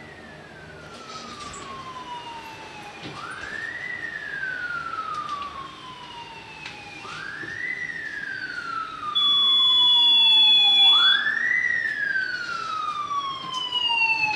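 Emergency vehicle siren wailing, growing louder. Each cycle rises quickly and then falls slowly, and a new cycle starts about every four seconds. About two-thirds of the way through, a steady high beep sounds for about two seconds.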